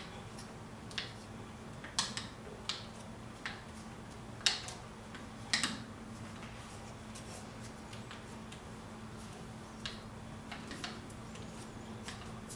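Scattered sharp metallic clicks and taps of a cylinder wrench being moved and re-seated on a K-Series waterjet pump's seal head nut as the nut is turned loose, over a steady low hum.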